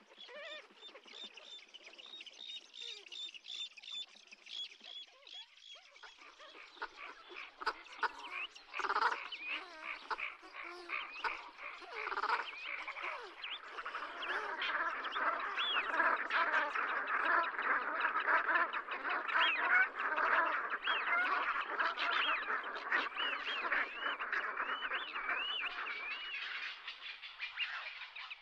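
A flock of light-bellied brent geese calling, a dense chorus of overlapping calls that builds from about six seconds in and is loudest in the second half.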